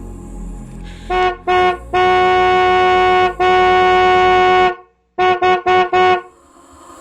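Car horn honking on one steady pitch: two short blasts, two long ones, then four quick beeps, each cut off sharply.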